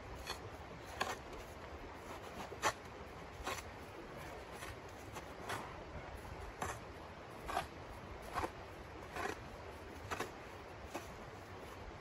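Small hand shovel crunching and scraping into crusty snow in short strokes, about one a second.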